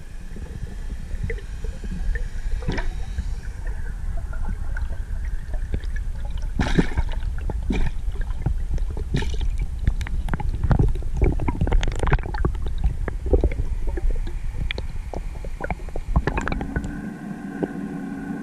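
Underwater sound heard through the camera: a steady low rumble of water with scattered clicks and knocks as the diver handles the speared fish and his gear. A steady humming tone comes in near the end.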